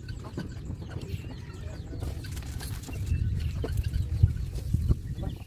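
Chickens clucking, over a low rumble that grows louder past the middle.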